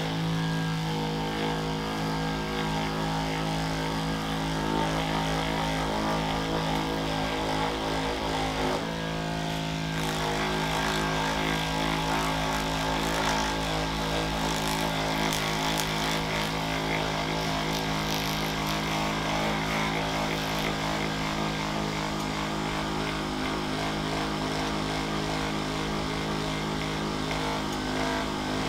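Handheld percussion massage gun running steadily against a person's back, a constant motor buzz with a short wobble in pitch about nine seconds in.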